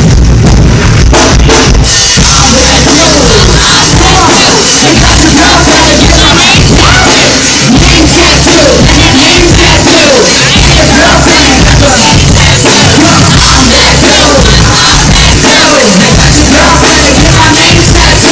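Hip-hop backing track played very loud through a venue PA, with a heavy bass and drum beat.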